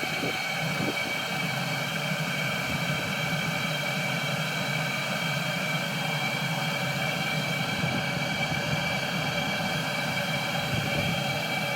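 Chinese 12 V diesel heater running, its blower motor giving a steady hum with a constant high whine.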